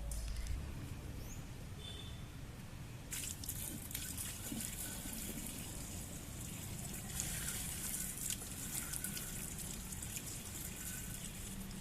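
Water spraying from a big-gun sprinkler: a hiss of falling spray that comes in about three seconds in and is loudest around the middle.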